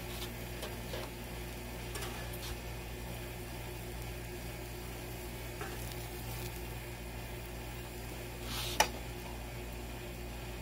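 Burger patties sizzling on a flat-top gas griddle. A metal spatula scrapes under a patty to lift it, with a few light clicks and one sharp clack near the end.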